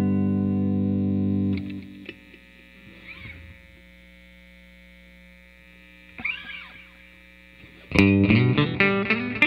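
Electric guitar with a hand-wound P90 pickup, played through an amp. A strummed chord rings and is choked off about a second and a half in. Then only a low amp hum and a couple of faint handling noises remain for several seconds, until picked single notes start near the end.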